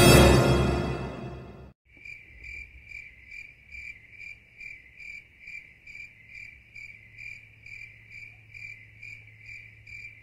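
Music fades out over the first two seconds. Then a cricket chirps steadily, about two and a half high-pitched chirps a second.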